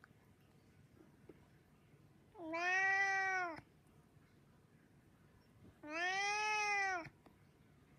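Tabby-and-white domestic cat meowing twice, two long drawn-out "naan" calls about three seconds apart, each rising then falling in pitch. The cat is hungry and begging for food.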